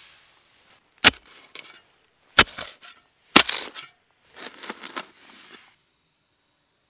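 Steel spade driven into damp forest soil three times, each stab a sharp crunch followed by a short scrape of earth, then a softer scraping as a spadeful is lifted out.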